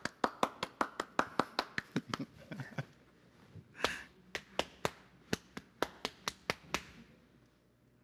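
Rhythmic hand claps and body-percussion slaps as a body-sound game: a run of sharp strikes at about four a second, a short break, then a second run that stops about seven seconds in.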